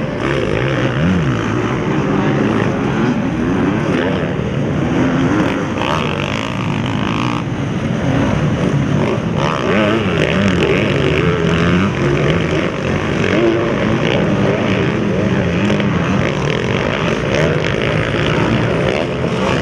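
Motocross dirt bike engines revving hard, their pitch rising and falling constantly as several bikes race over the jumps.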